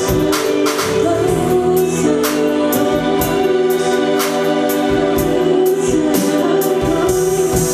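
A live band playing: held chords over bass and drums, with cymbals struck every second or so.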